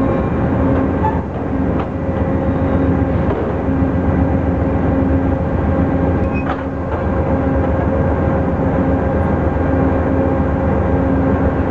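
Steady mechanical hum and drone from a stopped Amtrak passenger train with its equipment running. It holds one even tone, and a lower tone cycles on and off every second or two. A couple of faint clicks sound in the middle.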